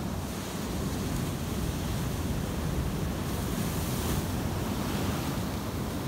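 Pacific Ocean surf breaking and foam washing, a steady rushing wash that swells to a brighter hiss a little past the middle. Wind buffets the phone's microphone throughout.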